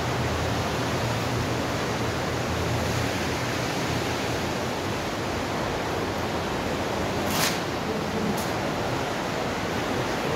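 Steady rush of water flowing through a 4-metre-diameter concrete sewer overflow siphon, echoing inside the pipe. A brief sharp sound comes about seven seconds in.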